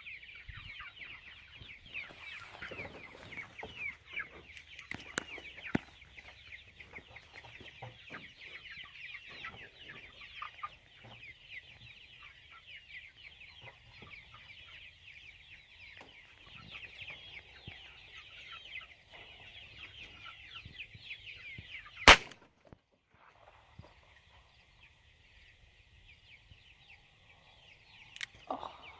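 A flock of chickens cheeping and clucking continuously. About 22 seconds in a single loud gunshot cracks out; the birds fall silent for a moment, then resume more faintly.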